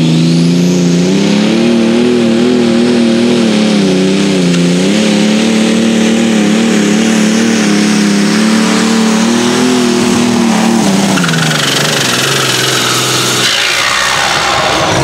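Allis-Chalmers 180 super stock pulling tractor's engine running at full power, dragging the weight-transfer sled down the track, its pitch wavering up and down. About 11 seconds in the revs fall away as the pull ends, leaving a lower rumble.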